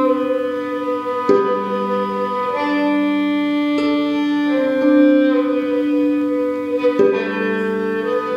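Film score of bowed strings, led by a violin, playing slow sustained notes that change every second or two.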